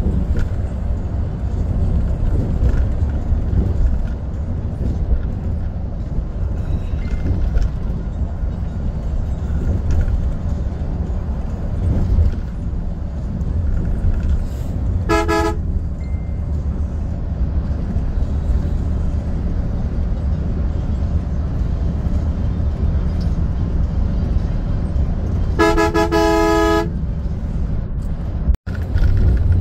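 Steady low rumble of an AC Volvo coach cruising on the highway, heard inside its cabin. A vehicle horn sounds twice: a short toot about halfway through and a longer blast of about a second near the end.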